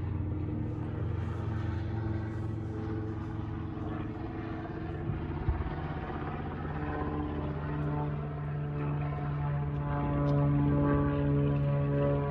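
A steady engine drone made of several held tones; it shifts in pitch partway through and grows louder toward the end. A single sharp knock comes about halfway through.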